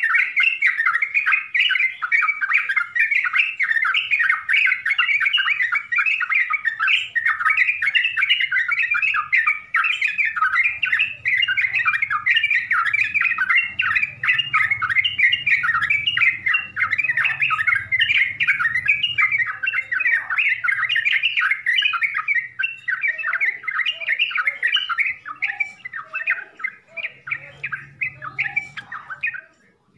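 Yellow-vented bulbul (trucukan) singing a full, busy song: a dense, unbroken stream of rapid chattering notes, thinning with some lower notes in the last few seconds before a brief break at the end.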